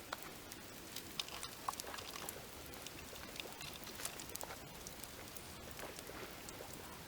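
Wood fire crackling: irregular small pops and ticks over a soft, steady hiss.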